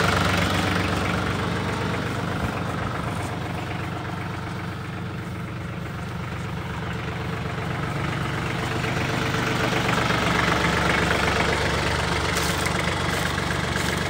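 Tractor engine running steadily at low revs, getting somewhat quieter toward the middle and louder again.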